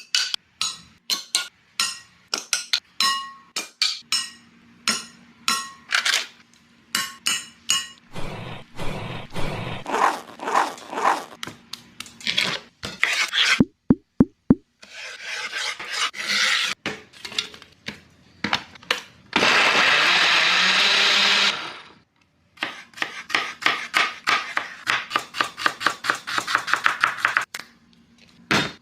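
Kitchen food-prep sounds: many sharp knocks and scraping strokes, a steady rushing noise for about two seconds past the middle that stops abruptly, then a fast run of even knocks near the end.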